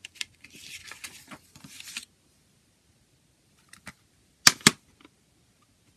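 Paper CD booklet rustling as it is handled and closed, then a plastic CD jewel case clicking shut, with a loud sharp double click about four and a half seconds in.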